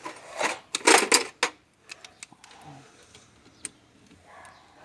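Metal hand tools clattering and clinking: a quick run of loud knocks in the first second and a half, then scattered faint clicks.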